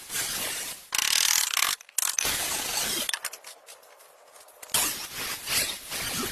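Rapid mechanical clicking in four bursts with short quieter gaps, from tool work on metal.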